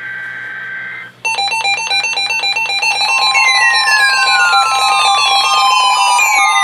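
The tail of a NOAA Weather Radio SAME digital header, a two-tone data warble, cuts off about a second in. Then weather radio alarms sound together for a severe thunderstorm watch: rapid, dense beeping in many tones with repeated falling sweeps, and a steady alert tone joining partway through.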